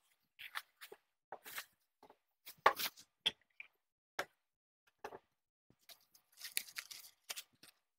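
Plastic packaging rustling and crinkling in short, irregular bursts as a subwoofer is pulled out of its bag and a wrapped part is unwrapped, with one louder knock about a third of the way in.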